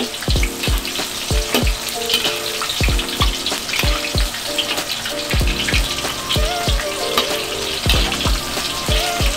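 Shimeji mushrooms deep-frying in hot oil, a steady sizzle, under background music with a regular thumping beat about twice a second.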